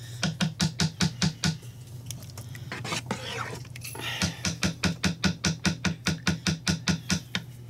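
A spoon stirring a thick mushroom-soup mixture in a slow cooker's pot, clicking against the pot about five times a second. There is a short run of strokes near the start, and a longer run begins about four seconds in.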